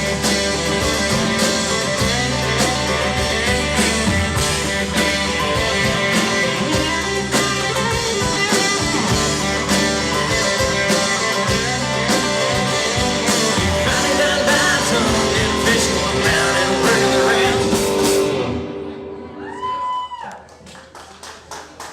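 Band music with singing and guitar, in a country-rock vein, that stops abruptly about eighteen seconds in. A quieter stretch follows, with a brief tone that rises and falls.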